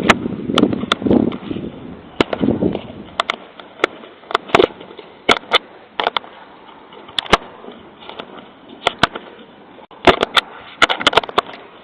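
Irregular sharp clicks and knocks, some single and some in quick clusters, with a denser run near the end, over a rumbling noise that dies away about three seconds in.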